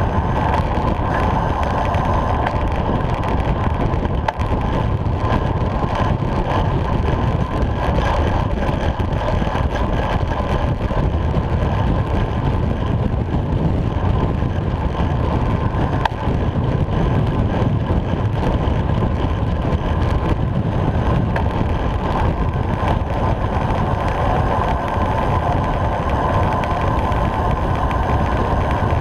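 Steady, loud wind rush over a bike-mounted GoPro's microphone on a road bike racing at about 35 mph, with tyre noise on the tarmac.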